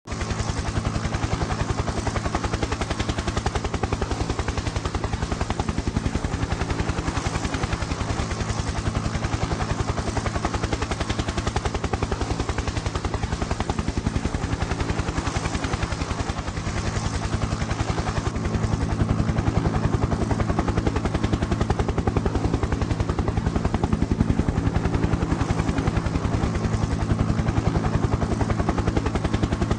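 Helicopter in flight, its rotor blades beating in a rapid, steady chop over the drone of the engine, growing a little louder about two-thirds of the way through.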